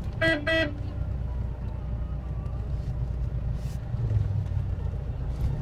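Vehicle horn giving two short beeps in quick succession, over the steady low rumble of a vehicle moving along the road.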